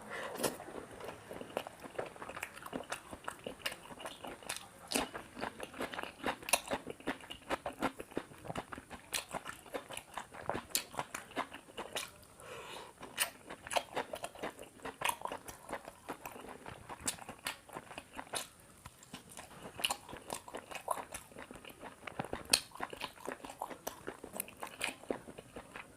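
Close-up eating sounds: a person chewing mouthfuls of chicken curry and paratha, with wet, irregular smacks and clicks several times a second.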